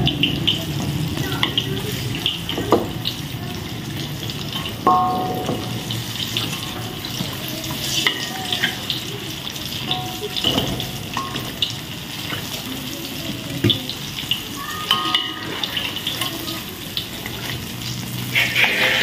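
Battered banana fritters frying in hot oil: a steady sizzle with scattered crackles, plus occasional knocks and brief clinks.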